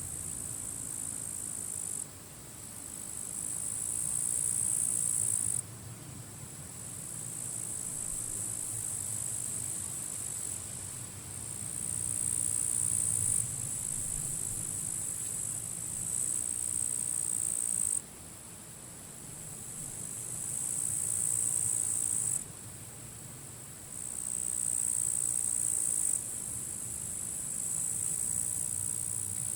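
Grasshoppers crackling in high-pitched bouts that start and stop abruptly every few seconds, over steady low wind noise.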